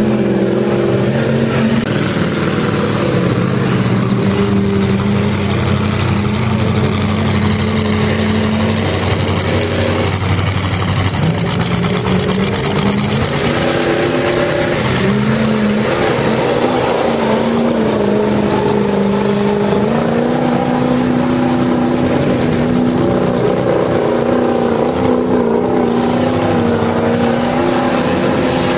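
Off-road mud truck's engine running hard at high revs, its pitch rising and falling as the throttle changes.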